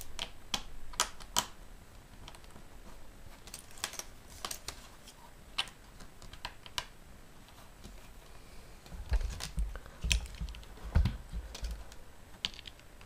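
Small plastic Lego bricks clicking and being snapped together by hand: irregular sharp clicks, with a few dull thumps about nine to eleven seconds in.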